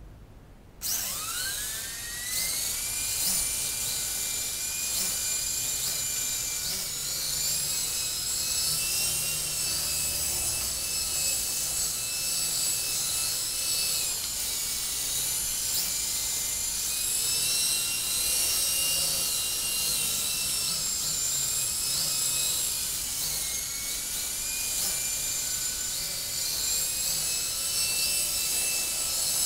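DH 9100 three-channel RC helicopter's electric motor spinning up about a second in with a rising whine, then a steady high whine as it flies. The pitch dips and climbs back several times as the motor speed changes.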